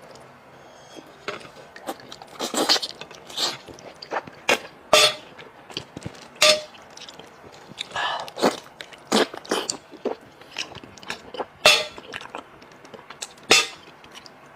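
Close-miked wet chewing and lip-smacking while eating braised pork trotters, with sharp, irregular smacks every half second to second or so.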